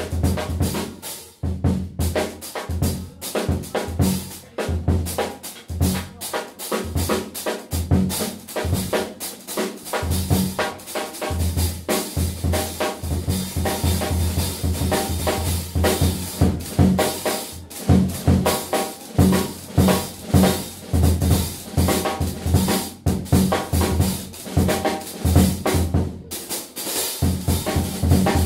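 Jazz drum kit played fast and busy, with dense snare, rimshot and bass drum strokes and cymbals.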